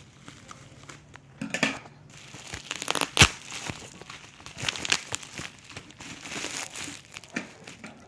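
Packaging being handled and torn open: irregular crinkling and tearing, with one sharp snap about three seconds in.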